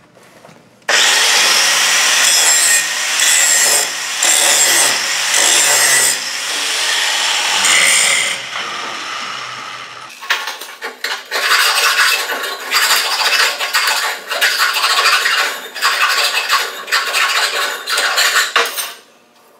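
Angle grinder with a 1/8-inch grinding wheel grinding a root face on the end of a steel pipe, starting about a second in and winding down around eight seconds. After it, a file rasps in quick strokes along the pipe edge, deburring the inside of the pipe.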